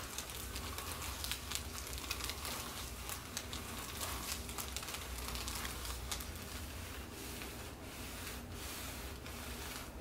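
Soft, continuous crackling rustle of hands kneading a person's neck and hair against a treatment table's headrest, over a steady low hum.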